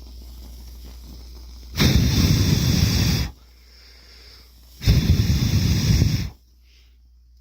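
Zippo Typhoon storm match flaring with a loud rushing hiss, twice, each flare about a second and a half long, in a match that keeps burning after being pushed into dirt and water.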